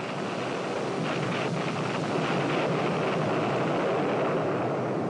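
Steady rushing wind noise, a sound effect laid under archive footage, swelling slightly midway.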